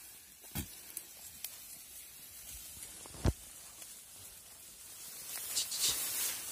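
Rustling of tall grass and reeds as a flock of goats and sheep push through them, with a few soft knocks and one louder thump about three seconds in; the rustling grows louder near the end.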